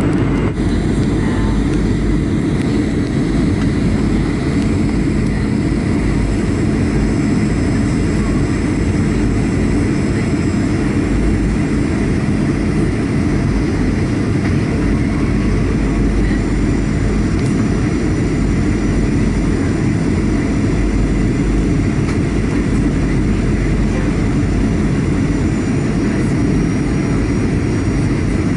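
Steady roar of a Boeing 737-800's CFM56-7B turbofans and rushing airflow, heard inside the cabin on final approach, with a faint steady high whine over the low rumble.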